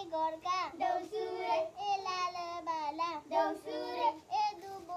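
A child singing a Deusi chant in a high voice, in short sung phrases with brief breaks between them.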